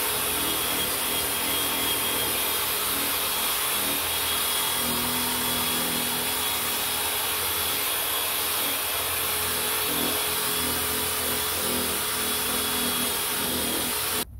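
Corded electric drill with a buffing pad running steadily at an even speed while polishing a plastic motorcycle fuel tank: a constant motor whine mixed with the pad rubbing on the plastic. It cuts off suddenly at the end.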